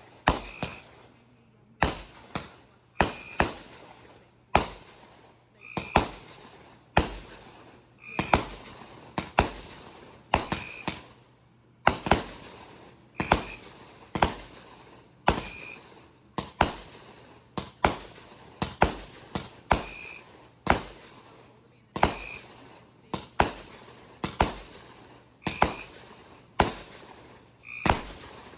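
Fireworks going off in a rapid series of sharp bangs, about one or two a second, each with a short echoing tail.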